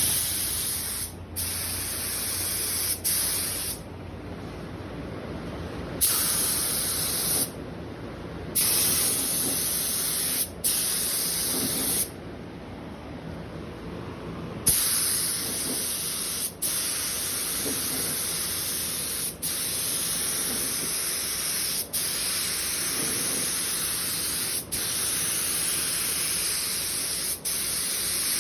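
Compressed-air paint spray gun hissing as it sprays in passes, the trigger let off between strokes. In the first half there are longer spurts with pauses of a second or two; after that it sprays steadily, with a brief break about every two and a half seconds.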